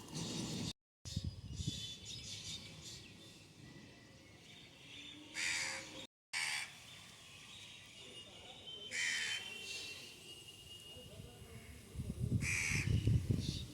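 A crow cawing: three single caws a few seconds apart, with a low rumbling noise rising near the end.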